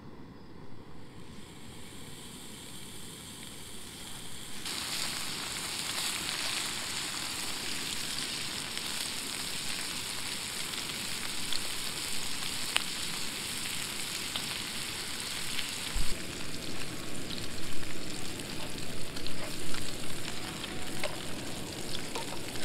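Sliced pork frying in a pot on a backpacking canister stove, a steady sizzle that starts suddenly about five seconds in and grows louder, with crackling pops, in the last third.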